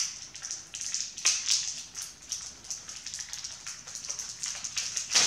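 Crinkly plastic candy packaging rustling and crackling as it is handled and opened, with irregular sharper crackles, the loudest near the end.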